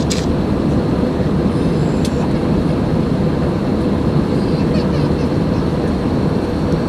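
Airbus A319 passenger cabin in cruise: a steady low rumble of airflow and engine noise, with a faint steady hum above it.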